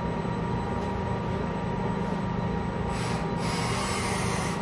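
Steady mechanical hum of air handling in a workshop, with a soft high hiss from about three seconds in until near the end.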